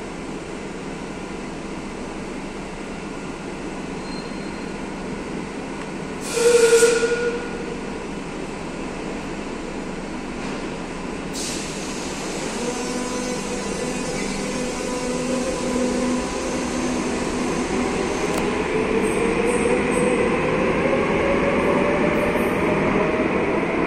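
Madrid Metro Serie 5500 electric train humming at the platform. About six seconds in there is a brief loud tone about a second long, and a sharp knock comes near the middle. The train then pulls away, its traction motors whining and rising slowly in pitch as it speeds up, louder toward the end.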